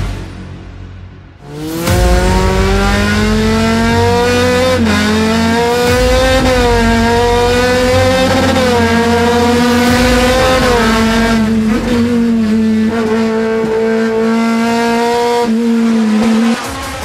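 Touring race car engine heard from inside the cockpit, running hard at high revs. It comes in about a second and a half in, and its pitch rises and dips several times. It cuts off shortly before the end.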